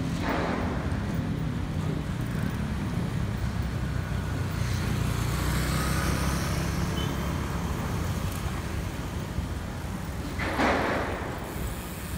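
Roadside traffic ambience: a steady low rumble of road traffic, with a brief rush of noise at the start and a louder one near the end.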